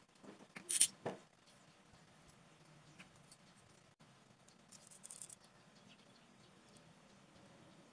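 Small handling sounds of popsicle-stick wood and a plastic bottle cap being worked by hand: a few sharp clicks and a brief scrape about a second in, a scratchy rustle around five seconds, and scattered faint ticks over a low room hum.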